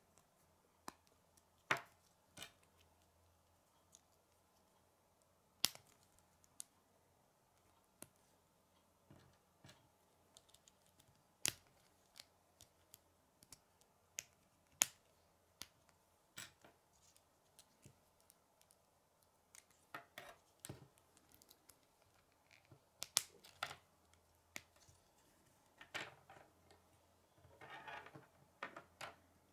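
Plastic K'nex rods and connectors clicking as they are snapped together by hand: scattered sharp clicks with pauses between, coming more often in the second half, with a short plastic rattle near the end as the piece is set down on the wooden table.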